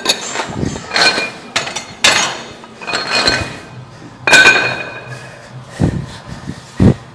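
Iron weight plates clanking against each other and the barbell sleeve as a plate is handled on the end of a barbell: a series of sharp metal clanks that ring briefly, the loudest about four seconds in, followed near the end by two duller thuds.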